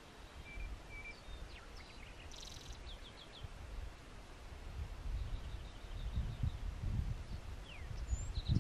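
Wild birds chirping with short high notes, a brief buzzy trill and a quick run of repeated notes, over a low, gusting rumble of wind.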